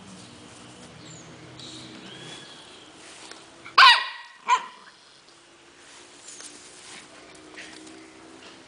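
Small dog barking twice in play, two short sharp barks less than a second apart, the first the louder.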